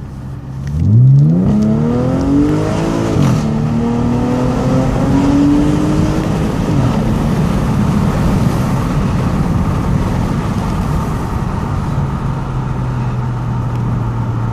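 Audi A5 3.2 FSI V6 with a custom exhaust accelerating hard from about a second in, the pitch climbing steeply, dropping at an upshift near three seconds, climbing again until about six and a half seconds, then settling to a steady cruise. Heard from inside the cabin.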